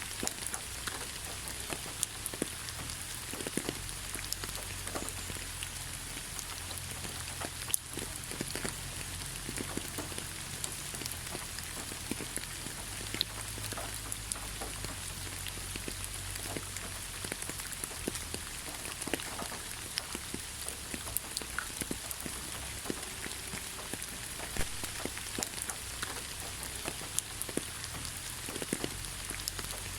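Steady rain falling on a surface, an even hiss with many separate drops ticking through it.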